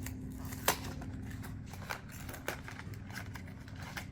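Scattered light clicks and crackles of a snack package being handled, over a low steady hum.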